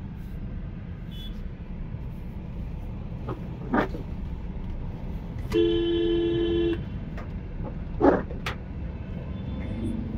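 Steady low rumble of slow traffic heard from inside a car's cabin, with a car horn sounding once for about a second just past the middle. Two short knocks come at about four and eight seconds in.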